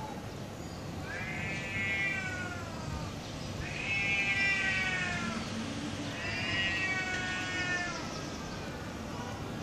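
Cats yowling at each other in a fighting standoff: three long, drawn-out wails about a second apart, each sliding down in pitch as it ends, the aggressive caterwaul that comes before a cat fight.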